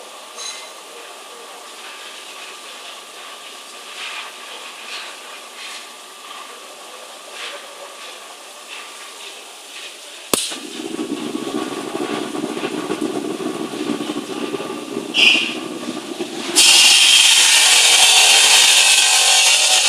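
Tube-processing machine: after a quiet stretch with a few light ticks, a sharp click about ten seconds in, then its electric motor starts and runs with a low hum. A short hiss of air comes near the end, then a loud, harsh, steady machine noise takes over.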